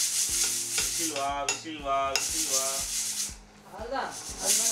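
Pressure cooker whistle weight venting steam: loud hissing for about two seconds, a pause, then a second burst of hissing near the end.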